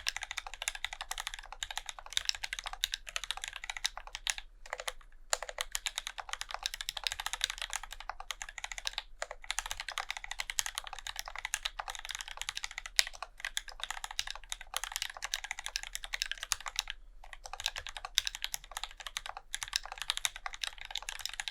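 Fast, continuous typing on an acrylic-cased Alice-layout mechanical keyboard with Krytox 205g0-lubed Gateron Black Ink linear switches and SA-profile keycaps, a rapid stream of key clacks. Brief pauses come about five, nine and seventeen seconds in.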